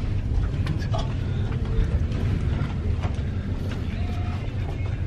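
Steady low rumble aboard a cruise ship, heard in a cabin corridor, with a few faint clicks and taps over it.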